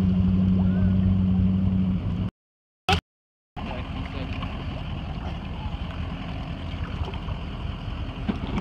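Motorboat engine running with a steady low hum. It cuts out to silence after about two seconds, then a quieter, rougher low rumble of engine and water noise carries on.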